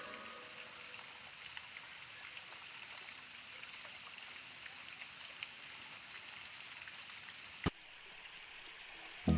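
Small forest stream running and trickling over rocks, a steady hiss of water with fine splashy ticks. A single sharp click comes near the end, after which the water is a little quieter.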